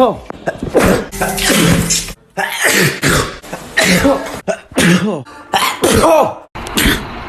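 A rapid run of human sneezes edited back to back, about eight short bursts, each a noisy blast with a voice sliding down in pitch, with abrupt cuts between them.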